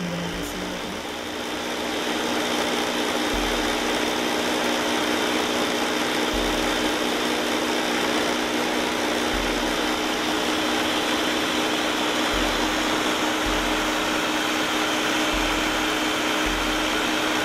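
Ninja 1500-watt blender running on its smoothie program, the motor whirring steadily through a thick jar of frozen fruit and yogurt. A deeper low hum comes and goes every one to three seconds.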